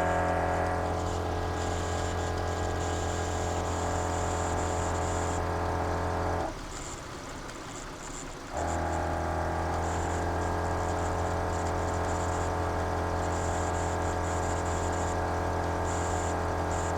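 Dual 12-volt air compressor of a MORRflate tire inflation system running steadily with an even hum, inflating the tires. It cuts out briefly partway through and restarts about two seconds later, a stop the owner suspects came from switching on the pressure gauge.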